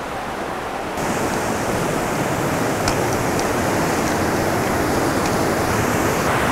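Steady rushing of river rapids, which grows louder about a second in, with a few faint taps.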